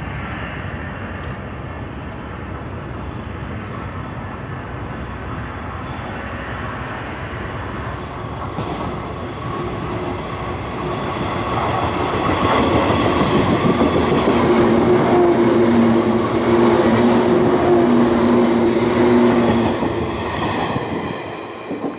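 JR 185 series electric multiple unit passing through without stopping: the rumble of wheels on rail grows from about twelve seconds in and is loudest as the cars go by. Two steady tones ring over it for several seconds, and the sound falls away near the end as the last cars pass.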